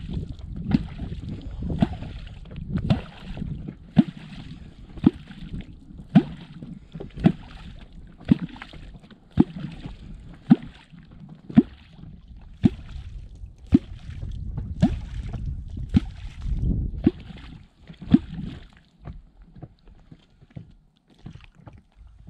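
A wooden catfish clonk (kwok) struck into the river water at a steady pace of about one deep, hollow "clonk" a second, with splashing and gurgling. The strikes stop near the end. The sound calls wels catfish up to the bait.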